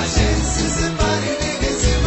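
Live band music with a steady beat and a heavy bass line; no voice stands out.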